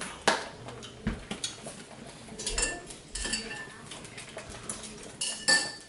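Metal utensils clinking and knocking against a cooking pot, a string of scattered sharp clinks, some with a short metallic ring, the loudest near the end.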